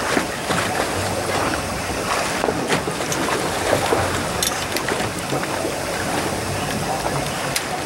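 Wind and sea noise on a fishing boat's open deck, with a boat engine humming low and steady underneath and a few light clicks.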